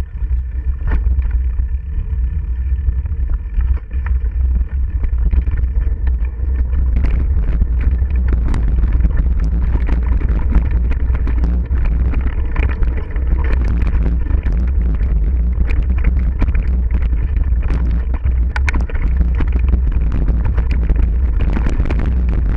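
Mountain bike riding fast down a dirt forest singletrack, heard through a bike-mounted action camera: a steady deep wind rumble on the microphone, with the rattle and clatter of the bike over rough ground. The rattling grows busier from about six seconds in.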